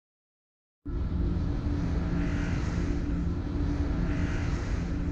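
Silence, then about a second in a steady rumbling drone starts: the rocket engine of a cartoon spaceship in flight, with a faint higher swell about every two seconds.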